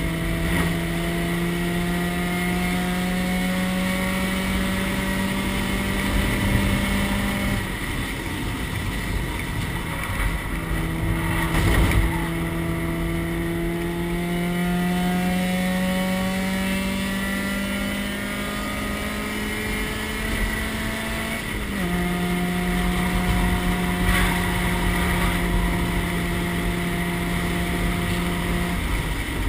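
Race car engine heard from inside its stripped, roll-caged cabin at speed: a steady engine note whose pitch climbs slowly as the car pulls, breaking off about seven seconds in and then dropping to a lower, steady note a little past twenty seconds. Constant wind and road noise runs underneath.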